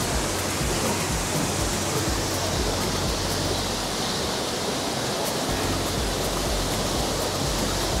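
Düden Waterfall pouring over its rock cliff in several falls: a steady, even rush of falling water.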